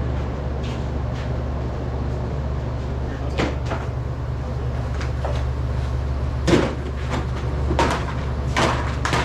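Scattered clunks and knocks, about five of them, the loudest about six and a half seconds in, over a steady low hum.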